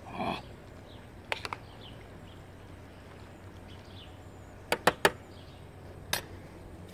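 Metal spoon stirring in a stainless steel cooking pot, clinking sharply against the pot: three quick clinks about a second and a half in, three louder ones around five seconds, and one more near six seconds.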